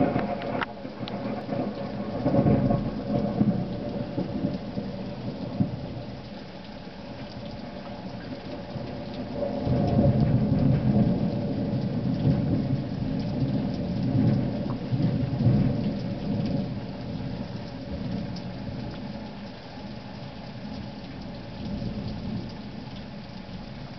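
Thunder rumbling over steady rain: a loud peal right at the start, another about two seconds in, and a long rumble from about ten to sixteen seconds in, then weaker rumbles near the end.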